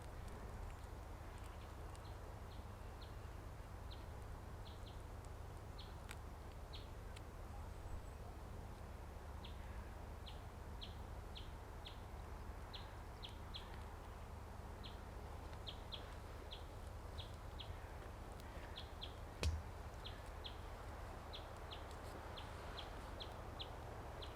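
A small bird calling over and over with short, high chirps at an uneven pace, over a low steady background hum. A single sharp knock sounds about two-thirds of the way through.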